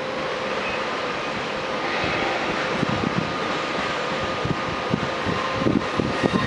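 Electric locomotive running slowly, a steady hum and whine with faint high tones. Low, irregular thuds join in from about three seconds in.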